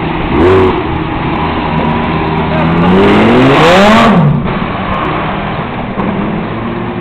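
Lamborghini Gallardo Spyder's V10 being revved: a quick throttle blip about half a second in, then a long, hard rev climbing to its loudest around four seconds in and falling back, after which it idles.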